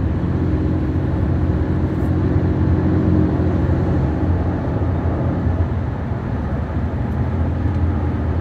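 Steady road and engine noise heard inside the cabin of a car driving at highway speed, a low, even drone with no distinct events.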